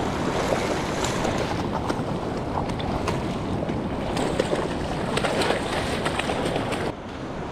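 Ocean surf washing on a beach, with wind buffeting the microphone; the level dips about seven seconds in.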